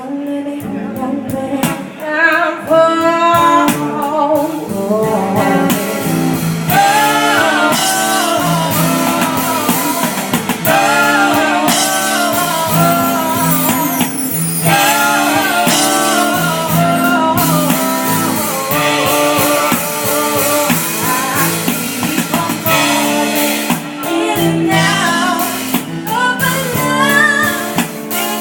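A band playing a mellow song, with a sung vocal line over guitar and drums.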